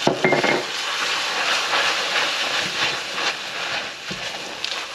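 Molten sugar syrup for peanut brittle hissing and sizzling hot in its bowl as it is worked, a steady loud hiss with a few small clicks and knocks.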